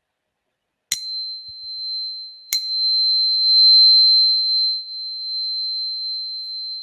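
Metal tuning fork struck twice against a smooth heart-shaped crystal: each strike is a sharp tap followed by a single high, steady ringing tone. The ring swells and wavers slightly a few seconds in, then slowly fades.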